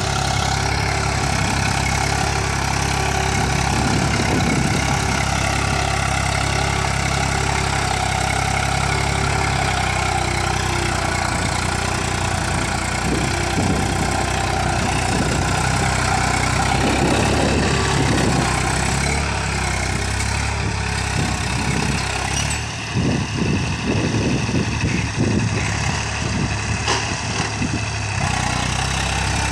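Eicher 380 tractor's diesel engine running steadily as it pulls a rear-mounted implement through the soil. The level wavers unevenly over the last few seconds.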